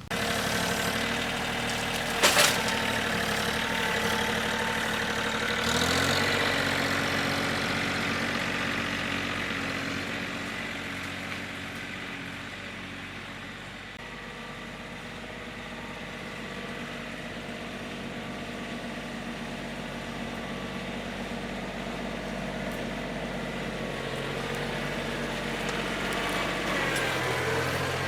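An engine running steadily at idle, with a sharp click about two seconds in and a change in its note about six seconds in; it fades a little toward the middle and grows louder again near the end.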